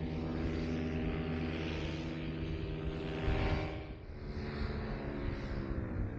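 Two-stroke paramotor engine and propeller running steadily, its pitch easing down and then falling near the end as the throttle comes off. Wind gusts rush over the microphone, loudest about three seconds in.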